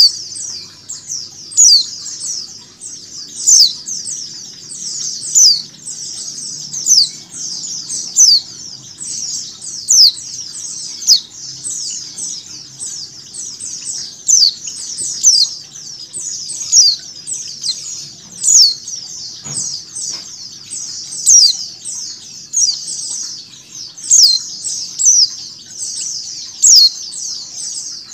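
White-eyes chirping: a dense, unbroken stream of high, thin, downward-slurred chirps, several a second, with louder ones standing out every second or two. It is a female white-eye's repeated calls layered over a recording of a chattering white-eye flock.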